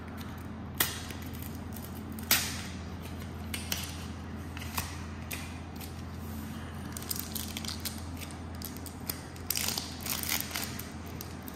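Sleeved Pokémon card booster pack being torn open and handled, the cardboard sleeve and foil wrapper crinkling and rustling. There are two sharp snaps about one and two seconds in, and a busier stretch of rustling near the end.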